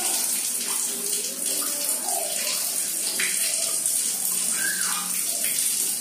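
Water running steadily from a wall tap and splashing onto a tiled floor, an even hiss.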